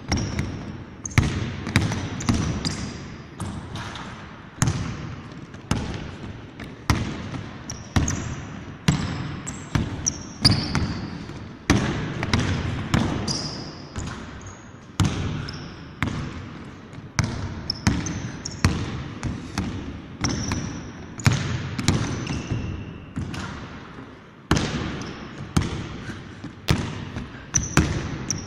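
A basketball being dribbled on a hardwood court, bouncing at an uneven pace of about one to two bounces a second, each bounce echoing in a large empty gym. Short high squeaks from sneakers on the floor come between the bounces.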